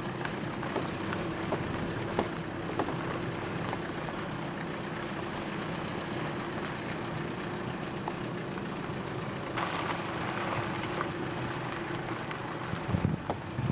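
Car engine and road noise, a steady hum heard from inside a moving car, with a brief louder rush of noise about ten seconds in and a few knocks near the end.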